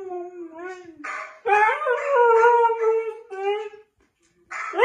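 Siberian husky howling and "talking" in long, wavering calls that slide in pitch: one howl trails off in the first second, a longer one runs from about a second and a half in, a short one follows, and after a brief pause a new call rises at the very end.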